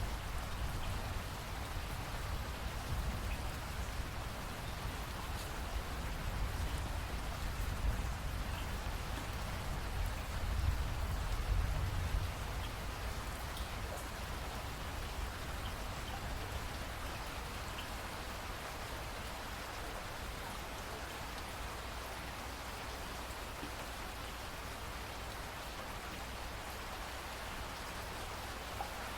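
Steady rain falling, an even hiss with a low rumble underneath that eases after about twelve seconds.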